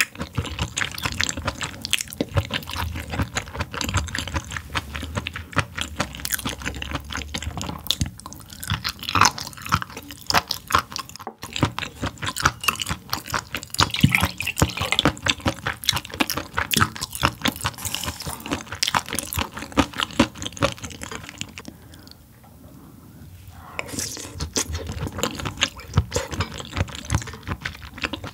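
Close-miked chewing with wet, smacking mouth sounds: a dense run of rapid small clicks and squelches, easing off for a couple of seconds about three-quarters of the way through.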